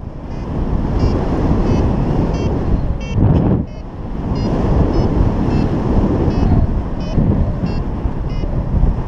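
Wind rushing over the microphone in paraglider flight. Over it, a flight variometer gives short high beeps at about two a second, the sound of the glider climbing.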